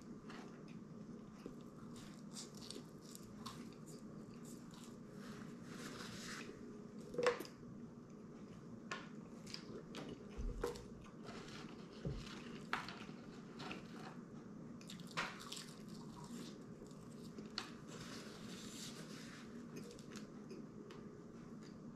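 Quiet close-up eating: a person chewing and biting into french fries, with small scattered clicks and taps, the sharpest about seven seconds in, over a steady low hum.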